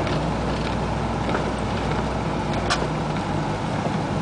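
Cab interior of a 1988 Isuzu Trooper driving in the rain: steady engine hum and wet-road tyre noise, with a single sharp tick about two and a half seconds in.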